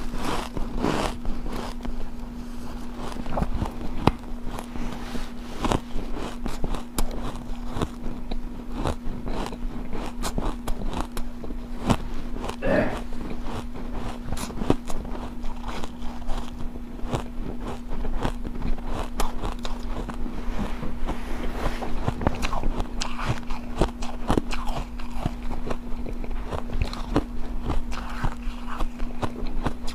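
Close-up biting and chewing of hard refrozen ice chunks: dense, irregular crunches and crackles, over a steady low hum.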